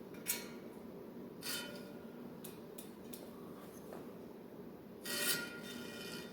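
Short scraping and rubbing sounds from bicycle wheel truing work: a few brief scrapes, then a longer, louder one near the end, over a steady low hum.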